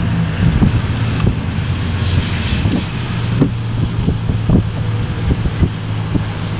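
Wind buffeting the microphone in irregular low gusts over a steady low hum of a vehicle engine or traffic.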